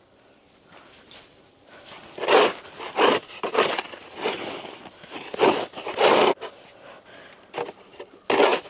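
Snow being scraped and cleared: about seven short crunching, scraping strokes at an uneven pace, starting about two seconds in.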